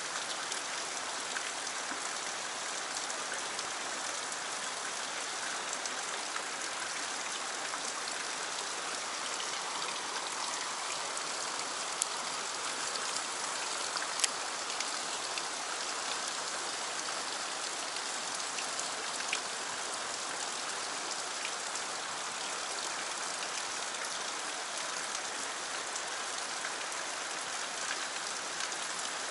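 Steady rushing hiss of stream water flowing through a narrow rock channel. A couple of faint sharp ticks sound about twelve and fourteen seconds in.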